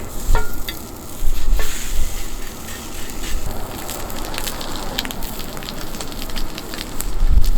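Thick pork tomahawk chop sizzling and crackling in a hot pan, with sharp pops scattered throughout. Low rumble of wind buffeting the microphone picks up near the end.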